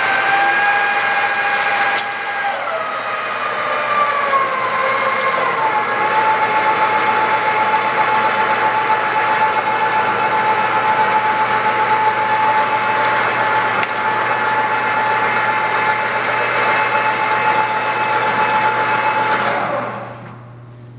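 Vectrax 1440EVS metal lathe running under power in its high speed range, with a steady whine from the spindle drive. The pitch steps down a few seconds in as the speed is lowered, holds steady, then fades out near the end.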